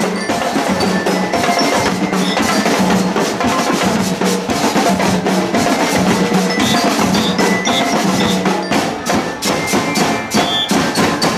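Marching band of drums and bell lyres playing: a fast, dense pattern of snare and bass drum strokes under a ringing metallic melody on the lyres.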